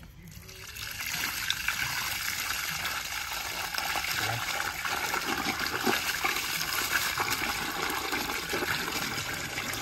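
Water spraying under residual line pressure out of the open end of a polyethylene water service line and splashing into the water pooled in the hole. It builds up over the first second, then runs steadily.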